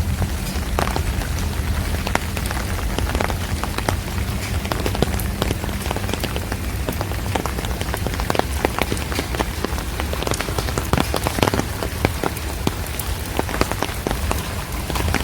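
Steady rain, with many sharp, close drop hits scattered through it over a steady low rumble.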